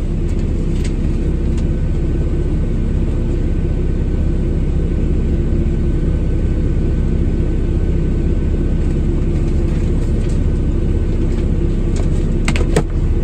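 Truck's diesel engine idling steadily, heard from inside the cab as an even low rumble, with a few sharp clicks near the end.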